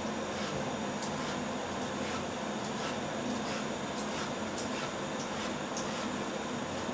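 Faint, irregular scraping strokes of a small blade peeling the skin off a marrow, over a steady background hiss.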